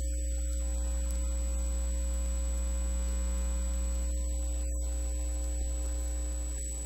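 Steady electrical mains hum with a thin, high, steady whine above it.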